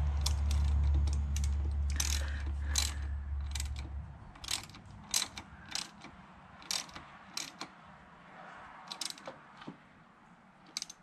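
Hand ratchet turning a Yamaha WR400F's crankshaft over by hand to feed the cam chain onto its sprocket, its pawl giving irregular runs of sharp clicks. A low hum sounds under the first four seconds and then cuts out.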